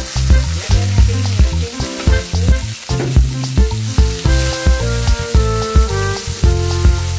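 Hot oil sizzling as chopped tomato, onion and garlic fry in a pan and are stirred with a wooden spoon, under background music with a steady beat.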